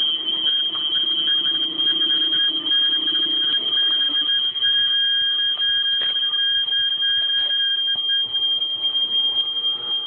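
Fire alarm sounding one continuous, unbroken high-pitched tone.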